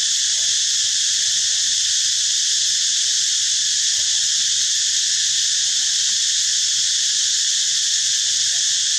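Steady insect chorus, a loud, dense, unbroken buzz that holds the same level throughout.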